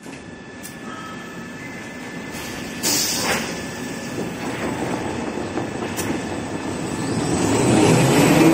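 Toilet-paper and kitchen-towel rewinding machine running, its parent rolls unwinding: a steady mechanical rattle and rumble, with a sudden louder burst about three seconds in, growing louder near the end.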